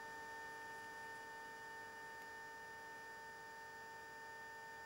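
Faint, steady electrical hum: a constant high hum of a few held pitches over faint hiss, unchanging throughout.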